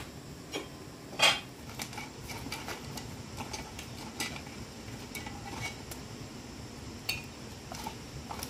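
Kitchenware being handled: irregular light clinks and knocks, the loudest a little over a second in.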